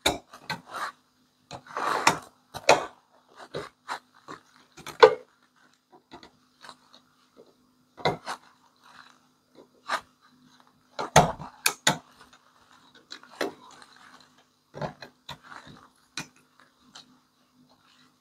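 Small screwdriver tapping, scraping and prying at the plastic housing and circuit board of an automatic transfer switch: a string of irregular clicks and knocks, louder about two seconds in and again near the middle, as a hidden plastic latch that still holds the module is worked at.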